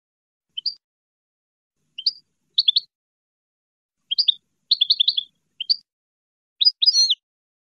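European goldfinch singing: separate high chirps with short pauses between them, running together into quick twittering phrases, and near the end a longer phrase with a drawn-out, wavering note.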